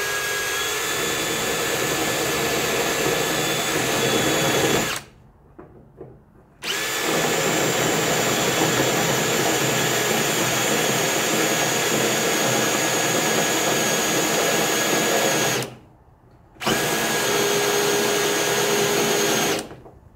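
Cordless drill spinning a spot weld cutter, cutting through the spot welds in the truck cab's sheet steel. It runs steadily in three stretches: about five seconds, then about nine seconds after a short pause, then about three seconds after a one-second pause, and it stops just before the end.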